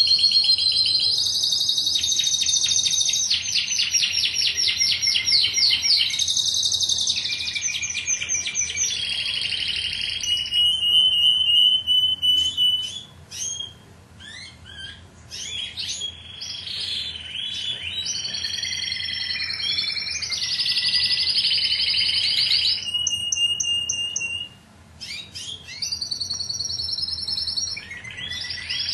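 Domestic canary singing loudly in long phrases of fast repeated trills, with a few held whistled notes, breaking off briefly twice.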